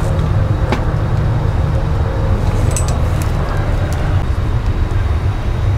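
Steady low rumble of workbench room noise, with a few faint clicks.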